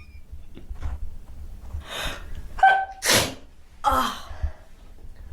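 A person sneezing several times in quick succession, each sharp, breathy burst led by a short voiced 'ah'. The loudest comes about three seconds in, with another close behind a second later.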